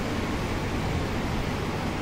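Wind buffeting the microphone: a steady rushing hiss with a heavy low rumble.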